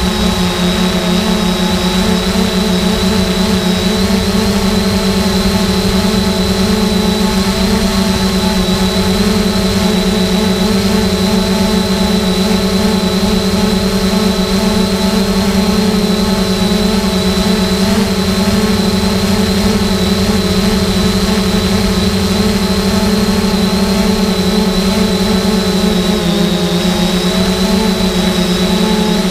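3DR Solo quadcopter's electric motors and propellers humming steadily in flight, a low buzzing drone with a thin high whine above it. The pitch dips slightly near the end.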